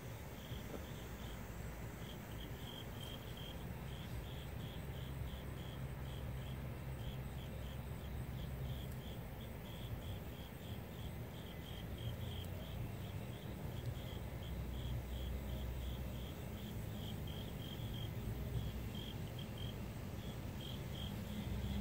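Insect chirping: short high chirps repeating a few times a second, with brief pauses, over a low steady rumble.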